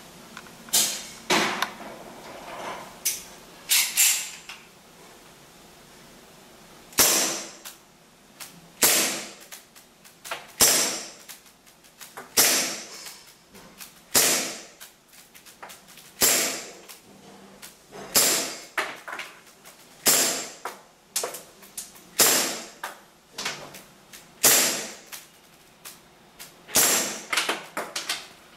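WE M9 gas blowback airsoft pistol firing single shots, each a sharp crack as the strong blowback slide cycles. After a few shots and a short pause, the shots come at a steady pace of about one every two seconds.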